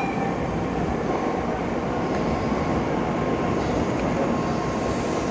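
Shinkansen train running along the station platform as it pulls in, a steady rumble and rush of noise with a faint steady whine.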